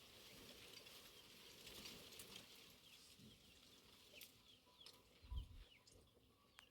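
Faint bird chirping: many short, falling, high chirps scattered through, with a single low thump about five seconds in.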